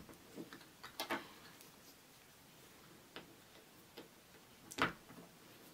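Small plastic clicks and taps of Lego minifigure pieces being handled and fitted together, quiet and irregular, with a cluster about a second in and the loudest tap near the end.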